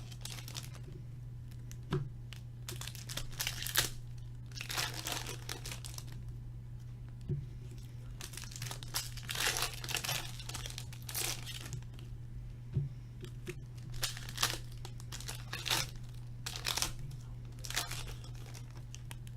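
Plastic and foil wrapping of a hockey trading card box and its packs being torn open and crinkled in irregular short swishes, over a steady low electrical hum.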